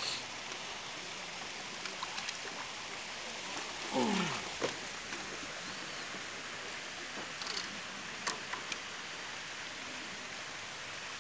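A steady hiss, with a short vocal sound about four seconds in and a few faint clicks.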